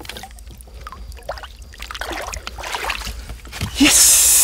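Water trickling and sloshing around a peacock bass held at the surface beside a boat for release, with a loud splash near the end as the fish kicks free.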